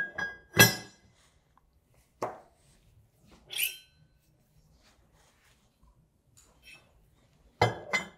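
Stainless steel rotors of a Universal 2 positive-displacement pump clinking and knocking against the steel pump cover as they are taken off the shafts and set down: a few separate metal clinks with a short ring, the loudest pair near the end.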